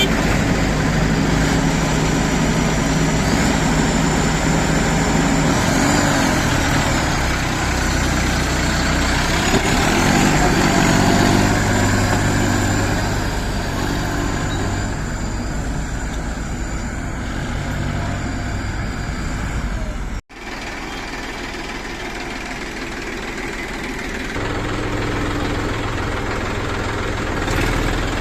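Diesel engine of a JCB 3DX backhoe loader running steadily, its pitch rising and falling a little as the machine works. About twenty seconds in, the sound cuts out for an instant and comes back a bit quieter.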